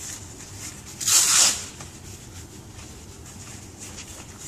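A hook-and-loop (Velcro) leg strap on a body-weight-support harness ripping once, briefly, about a second in, as it is pulled open to be adjusted; faint rustle of harness straps otherwise.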